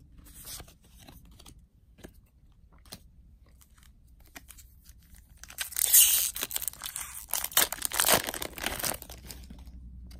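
A foil Magic: The Gathering booster pack wrapper being torn open by hand: loud crackling and tearing for about three seconds starting a little past halfway, after a few faint clicks.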